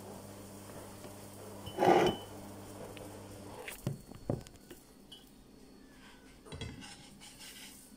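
Kitchen utensils and a frying pan clattering: one loud clink with a short ring about two seconds in, then a few lighter knocks. A low steady hum underneath stops partway through.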